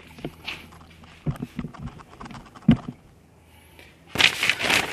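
Light clicks and knocks of metal tools and parts being handled on a workbench, with one sharper knock about two and a half seconds in. Near the end comes a burst of rustling handling noise.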